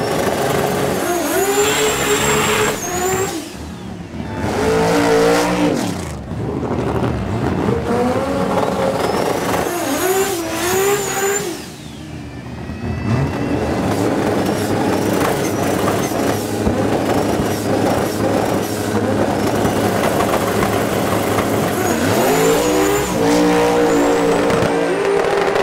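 Drag racing car engines revving hard, the pitch climbing and falling several times, then running at sustained full throttle for a long stretch before more revving near the end.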